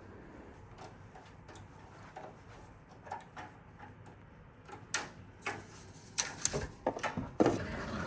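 Quiet room tone, then a run of sharp clicks and knocks from about five seconds in, the loudest near the end.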